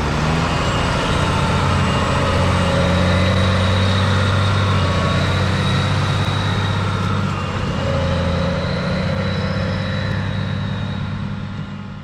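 New Holland tractor's diesel engine running steadily, fading out near the end.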